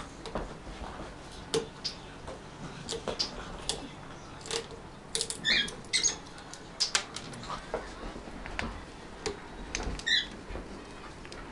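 Blue-and-yellow macaw chewing at a wooden block toy: irregular sharp clicks and cracks of beak on wood. Two short high squeaks come through, about halfway through and near the end.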